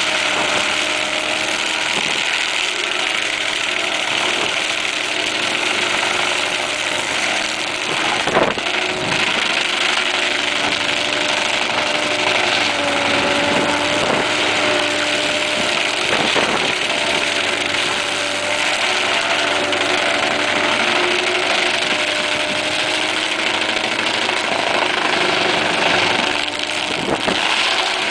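AHWI SF1100 excavator-mounted stump grinder running steadily as its rotor chews through a stump and soil, over the drone of the engine and hydraulic drive, whose pitch shifts slightly as it loads. A few sharp cracks stand out, about a third of the way in, in the middle and near the end.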